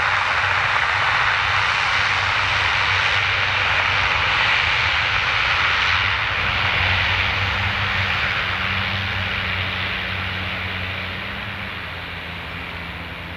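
Bombardier Dash 8-402 (Q400) turboprop's Pratt & Whitney PW150A engines and propellers running as the aircraft rolls past and away down the runway: a steady turbine hiss over a low propeller hum. A second low tone joins about halfway, and the sound fades over the last few seconds as the aircraft moves off.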